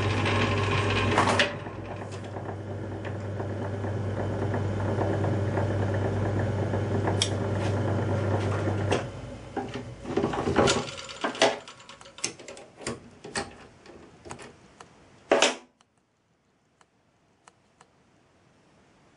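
Metal lathe turning a brass part, the cutting noise ending about a second in while the lathe runs on with a steady hum. The motor is switched off about nine seconds in, and is followed by a string of sharp metallic clicks and knocks as the chuck and the part are handled, the loudest just past fifteen seconds; then near silence.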